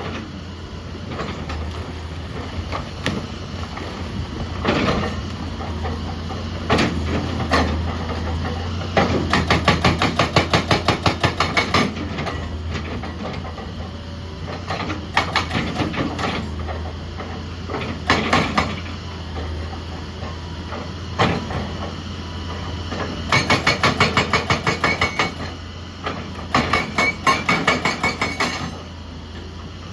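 Excavator's diesel engine running steadily, with a hydraulic rock breaker hammering rock in three bursts of rapid blows, about five a second, between scattered single knocks of steel on stone.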